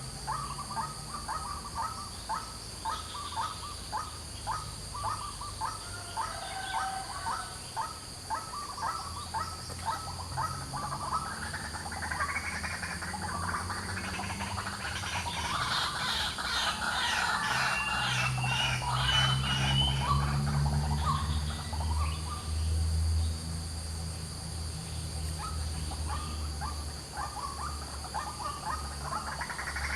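White-breasted waterhen calling, a long run of short, harsh notes repeated about twice a second, with a denser tangle of calls in the middle and the run starting again near the end.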